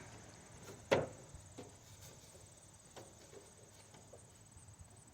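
A single sharp knock about a second in, then a few faint clicks over a quiet background.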